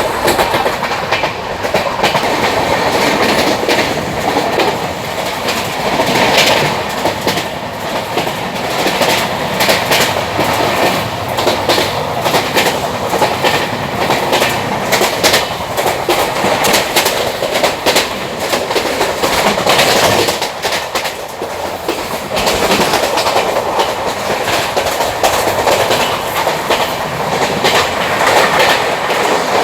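A train running on rails: a steady rolling rumble with frequent clicks and clacks of wheels over the track, easing briefly about two-thirds of the way through.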